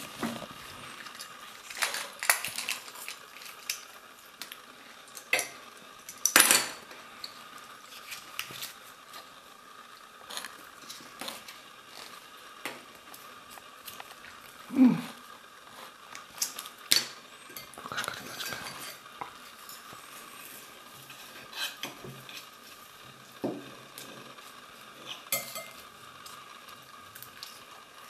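Small hard plastic pieces of a Kinder Joy capsule and its toy clicking and knocking against a wooden table as they are handled, in scattered irregular taps with a few louder knocks.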